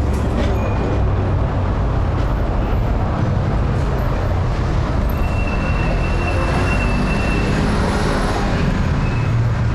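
Steady low rumble of city traffic and heavy vehicles, with a thin high whine for a couple of seconds about halfway through.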